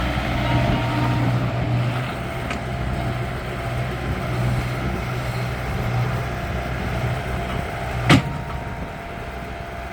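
Bobcat S185 skid steer's diesel engine running steadily, with one sharp, loud clank about eight seconds in.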